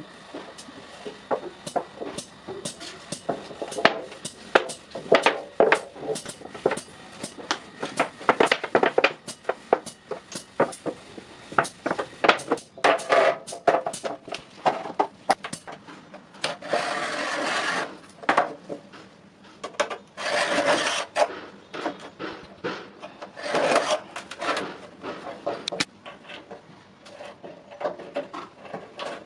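Hand tool work on iron: a busy run of quick scraping and tapping strokes, with three longer rasping strokes in the second half.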